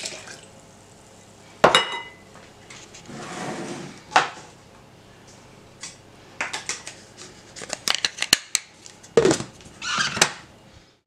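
Kitchen handling sounds around a stainless-steel blender jug. A glass clinks against the jug with a short ring, liquid pours in briefly, and there are knocks and small clatters. Louder handling near the end comes as the plastic lid is fitted onto the jug.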